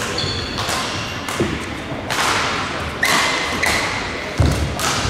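Badminton rally: racquets striking a shuttlecock back and forth, several sharp hits echoing around a large hall, with short high shoe squeaks on the court floor. A heavy thump of a player's footfall, the loudest sound, comes near the end.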